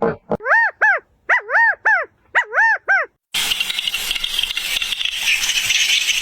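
An animal's short, high calls, each rising and falling in pitch, come in three quick groups of two or three. About three seconds in they stop and a steady hiss takes over.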